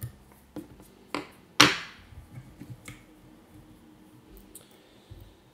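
Scissors snipping off excess braid at the hook and fly-tying tools being handled: a few sharp clicks, the loudest about a second and a half in, then a few faint ticks.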